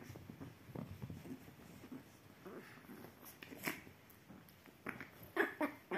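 Two Chihuahua puppies play-fighting on a fleece-covered sofa: soft scuffling of paws and bodies on the blanket, with a few brief sounds from the puppies, most of them near the end.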